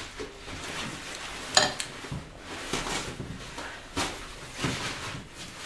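Metal spoon clinking against ceramic plates and bowls during a meal, with a sharp clink about a second and a half in and another about four seconds in, amid softer scraping and handling of dishes.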